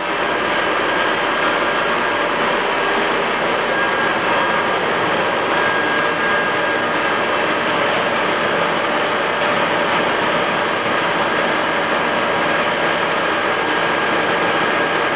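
Jet GH-1660 geared-head toolroom lathe running with its spindle at top speed, 1800 RPM: a steady mechanical run with several even, steady tones over the noise, holding level without change.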